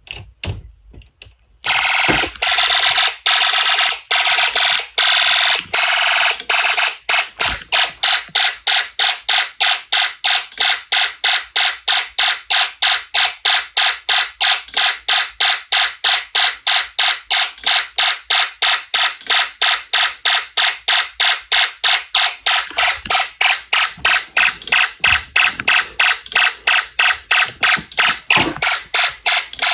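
Snap Circuits electronic fire alarm sounding with a loud, shrill tone. It comes on about two seconds in after a couple of short bursts and holds nearly steady for a few seconds. Then it pulses rapidly, several times a second.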